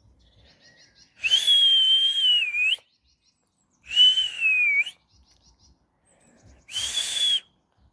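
A person whistling three times: three long, high, breathy whistles on a nearly steady pitch, the first about a second and a half, the second dipping slightly at its end, the third shorter.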